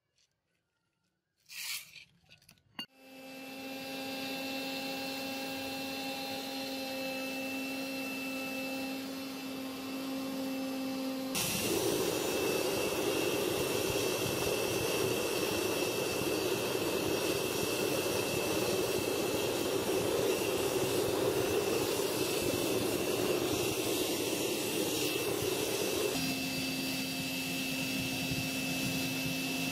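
Melting furnace's air blower running with a steady motor hum. About eleven seconds in, a loud, even rushing noise comes in over it and holds until a few seconds before the end, when it drops back to the hum. A few short knocks and scrapes come just before the hum starts.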